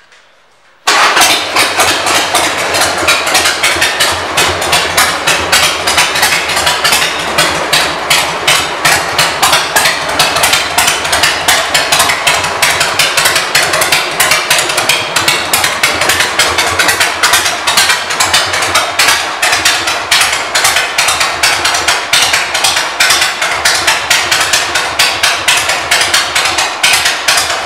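2001 Harley-Davidson Sportster 1200C's air-cooled 1200 cc V-twin, fitted with aftermarket exhaust pipes, cutting in suddenly about a second in and then idling steadily and loudly with a fast, even pulse.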